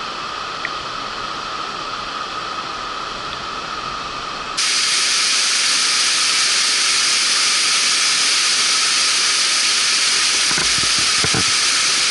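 Waterfall, a steady rushing hiss of falling water. About four and a half seconds in it jumps suddenly louder and brighter.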